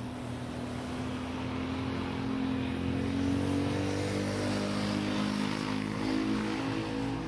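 Engine running with a droning, slowly shifting pitch, swelling louder around the middle and easing near the end.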